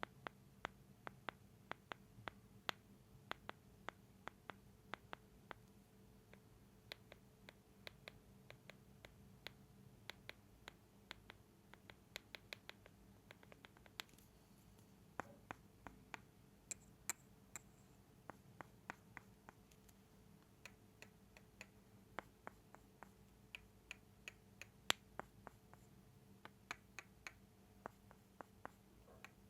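Close-miked ASMR mouth sounds: a steady stream of small, sharp wet clicks and lip smacks, several a second and irregular, over a faint steady hum.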